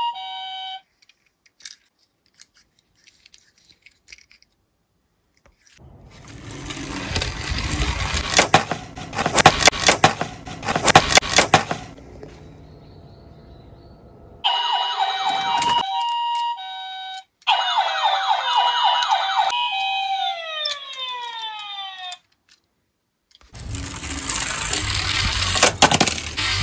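Edited toy-video soundtrack: an electronic two-tone hi-lo ambulance siren effect alternating between two pitches, a die-cast minicar rolling and clattering on a wooden board, the siren effect again, then a falling-pitch sound effect. Near the end another die-cast minicar rolls on the board.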